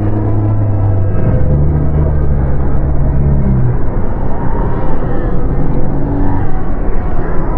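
Dark ambient horror drone: deep sustained low tones over a dense, rough rumbling texture. The low tones shift pitch about a second in and again near the middle.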